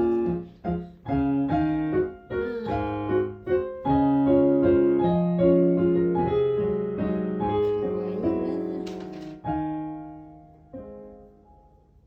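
Background piano music, a melody of separate notes, dying away near the end.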